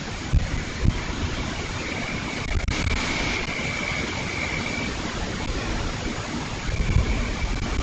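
Strong hurricane wind rushing through palm trees, with a few low thumps of gusts hitting the microphone, about half a second in, near one second and near seven seconds.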